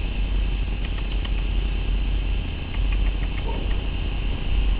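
Steady low rumble, with faint insects chirping in short repeated ticks.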